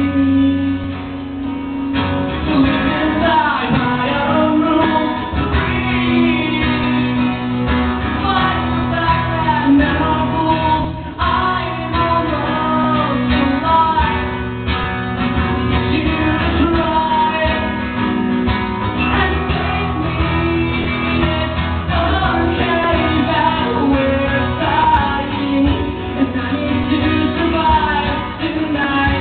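A man sings a song into a microphone while playing acoustic guitar in a live solo acoustic performance.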